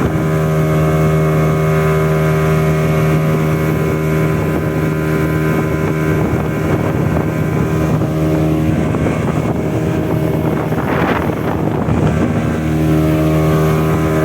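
Speedboat engine running steadily at speed, with rushing water and wind on the microphone. Partway through, the engine's steady note is swamped by a noisier rush that swells about eleven seconds in, then the engine note comes through clearly again.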